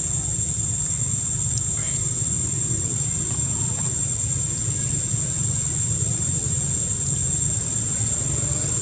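Steady outdoor background: a constant high-pitched insect drone over a low rumble, with no distinct event.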